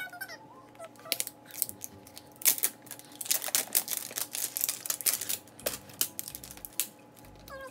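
Thin plastic wrapping crinkling and tearing as it is peeled off a plastic toy ball, a rapid run of crackles and clicks, thickest from about one to five seconds in.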